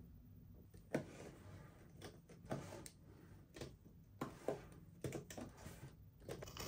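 Plastic toys and packaging being handled: irregular light clicks and knocks, about ten of them, the sharpest about a second in.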